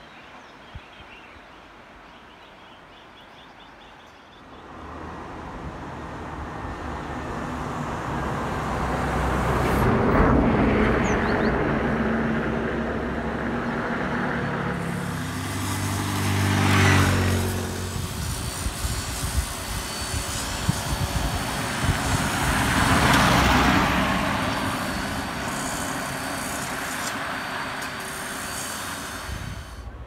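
Road traffic going past, several vehicles in turn, each swelling up and fading away. The loudest, about halfway through, is a motor scooter's engine passing close.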